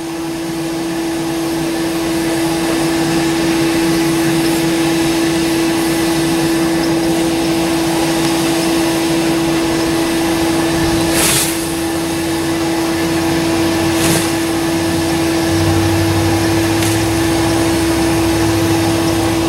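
Electric air blower running with a steady hum, forcing air into a barrel of burning wood to make charcoal. Two sharp knocks sound about eleven and fourteen seconds in, and a low rumble joins near the end.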